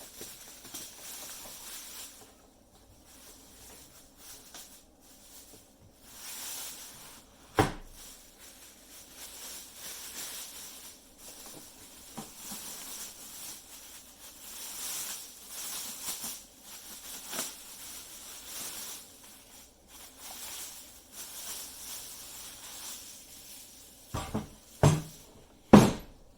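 Packaging being handled while a wood lathe is unpacked: on-and-off rustling, with one sharp knock partway through and a few louder knocks near the end.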